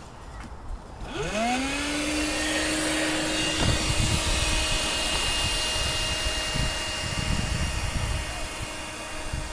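Sinclair C5 electric tricycle's motor whining as it pulls away and drives past, rising in pitch about a second in and then holding steady, over the rumble of its tyres on the tarmac path.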